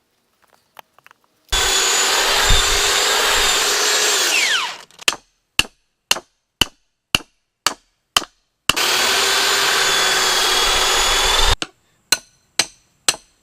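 Power drill boring through stacked wooden 4x4 posts for about three seconds, then winding down with a falling whine. Seven sharp hammer strikes follow, about two a second, driving half-inch threaded rod through the drilled hole. The drill runs again for about three seconds, then four more hammer strikes.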